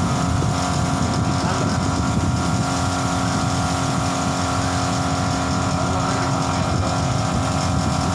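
A motor running steadily with a constant hum.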